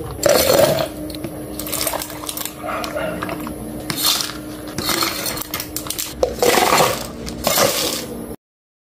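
Ice cubes clattering and clinking in plastic cups as iced milk drinks are poured and filled, heard as several separate clatters. The sound cuts off suddenly near the end.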